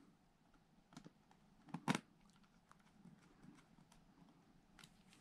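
A few short sharp clicks and faint taps from hands working on the open underside of an Alienware M15 laptop at its new battery and screws, the loudest a pair of clicks about two seconds in.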